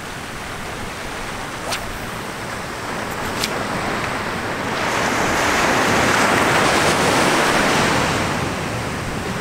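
Ocean surf washing up a sandy beach: a steady rush of breaking waves that swells to its loudest past the middle and then eases off. Two light ticks come early on the way.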